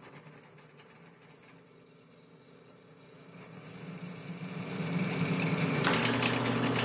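Drill press motor running steadily while a twist drill bit cuts through an oiled steel plate. A thin high whine fades out about halfway, and the cutting noise gets louder near the end.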